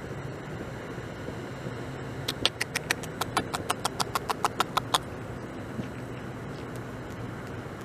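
Beaver gnawing bark off a log: a quick run of about sixteen sharp clicks, some six a second, as its incisors bite into the wood, lasting a little under three seconds near the middle, over a steady background hiss.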